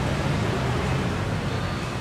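City street traffic ambience: a steady wash of road noise with a low engine hum that fades during the first second.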